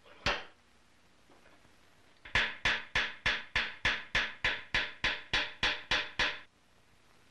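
Hammer blows on a small brass muzzle cap held in a steel swage block. One blow comes just after the start, then a steady run of about a dozen sharp, ringing blows at roughly three a second, as the end of the cap is hammered into shape.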